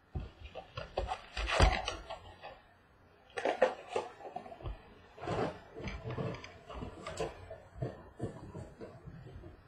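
A cardboard trading-card hobby box being opened and its wrapped packs pulled out and handled: irregular scraping, rubbing and crinkling strokes, loudest about a second and a half in, with a denser run of short handling sounds in the second half.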